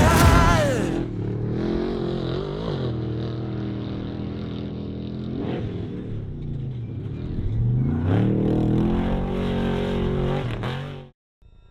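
Off-road race vehicle's engine running hard, its pitch dropping and climbing again several times with the throttle. It cuts off abruptly near the end.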